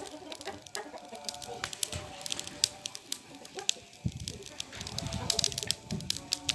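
Small cooking fire crackling with frequent sharp pops, with chickens clucking in the background.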